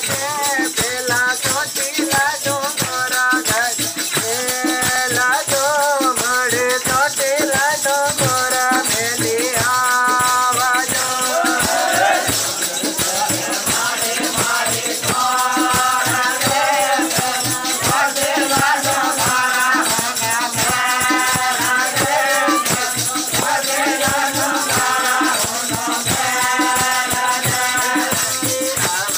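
Voices singing an Adivasi devotional song (bhajan), with a rattle shaken in a steady rhythm underneath.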